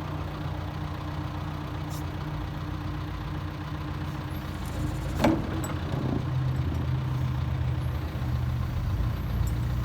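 John Deere 310SK backhoe's diesel engine idling steadily, with a sharp clank about halfway through, after which the engine runs a little louder.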